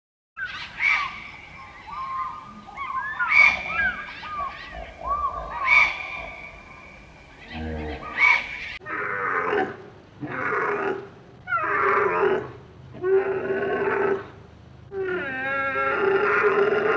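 For the first eight seconds or so, many short chirping animal calls overlap, with a few louder calls among them. After an abrupt cut, pigs squeal over and over, about one call a second.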